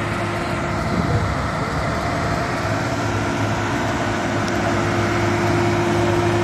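Dynapac asphalt paver's diesel engine running steadily with a constant hum as the tracked paver creeps forward laying asphalt, growing a little louder near the end.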